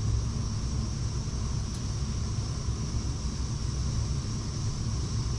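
Weil-McLain EGH-125 gas-fired steam boiler running with a steady low rumble and a faint, steady high hiss.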